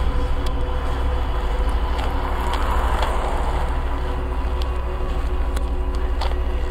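A steady, droning dark-ambient noise soundtrack: a continuous low rumble with a fast-pulsing hum, several held tones above it, and scattered sharp clicks.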